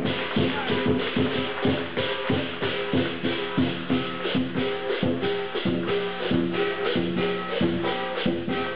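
Chinese lion dance percussion: a drum beaten with clashing cymbals and gong in a fast steady rhythm, about four strikes a second, the metal ringing on between strokes.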